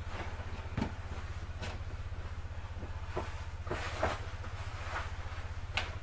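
Clothes being loaded by hand into the plastic wash tub of a mini twin-tub washing machine: rustling and about half a dozen light knocks of hands and fabric against the tub and lid, over a steady low hum.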